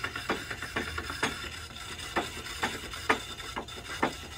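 Wet clay being centered by hand on a spinning Bailey pottery wheel. There is a steady low hum, with a soft wet slap or squelch about twice a second as the clay rubs under the hands.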